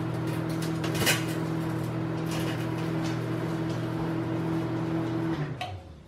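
Panasonic inverter microwave oven running with a steady hum, with a brief crackle about a second in. The hum winds down and stops near the end as the oven shuts off.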